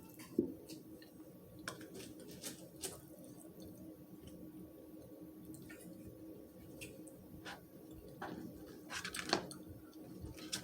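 Quiet sounds of someone eating: chewing with scattered small clicks and taps, a few louder ones around nine seconds in, over a faint steady hum.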